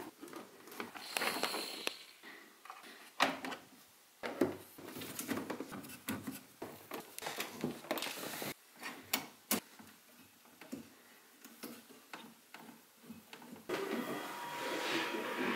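Hard plastic case panels of a 3D printer being handled and snapped into place, with irregular clicks, knocks and rattles. Near the end a steady noise with a faint held tone starts.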